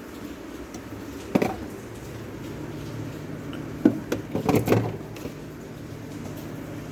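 Knocks and clatter of things being handled in a fridge: one knock about a second and a half in, then a quick run of several knocks and clicks around four to five seconds in, over a steady low hum.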